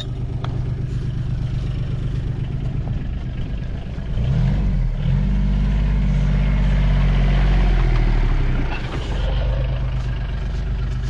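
Vehicle engine running under way. It picks up revs about four seconds in, holds the higher pitch for a few seconds, then eases back near the end.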